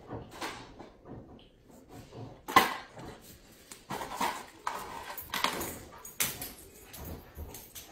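Irregular clinks and clattering knocks, a few short strokes a second, the loudest about two and a half seconds in.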